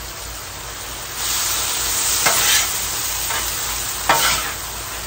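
Marinated steak sizzling on the hot steel top of a Blackstone flat-top griddle. The sizzle swells about a second in, and a couple of short clicks from a utensil sound over it.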